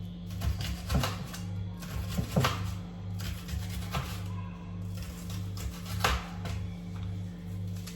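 Background music with a steady beat, over a few irregular sharp knocks of a kitchen knife on a cutting board while onion is sliced.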